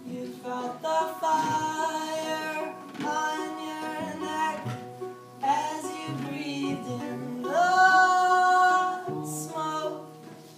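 A song sung over plucked acoustic guitar. The voice holds long notes and slides up into some of them; the loudest is a long held note about three quarters of the way through.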